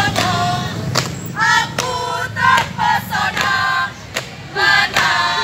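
A group of young girls chanting in unison in short, high-pitched shouted phrases, with a few sharp knocks between phrases and a steady low hum underneath.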